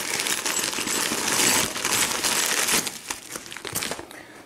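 A bag of brass lock cylinders, padlocks and keys being emptied onto carpet: the metal pieces clink and clatter against each other while the bag crinkles. The clatter is dense for about three seconds, then thins to a few scattered clinks.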